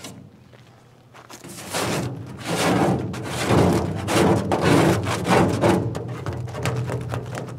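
Hand scraper pushing chemically softened paint off an aluminium truck panel in repeated strokes, starting about a second and a half in.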